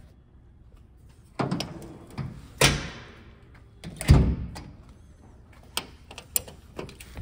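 Metal equipment-compartment doors on a fire engine being shut: a bang about a second and a half in, a louder one about a second later, and the loudest about four seconds in, each ringing briefly. Lighter latch clicks follow near the end.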